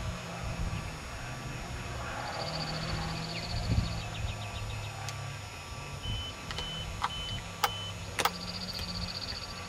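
Rally car engine running steadily in the distance, faint under outdoor hiss. A high, rapid chirping trill comes three times, and a few sharp clicks sound near the end.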